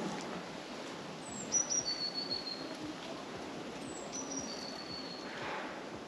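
A small songbird singing a short, high phrase that falls in steps, twice about three seconds apart, over steady outdoor background noise.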